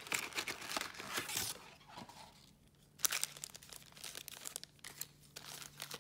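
Foil-wrapped trading-card packs crinkling and a cardboard box rustling as the packs are pulled out by hand. Dense crinkling for the first second and a half, a sharp snap about three seconds in, then lighter crinkling.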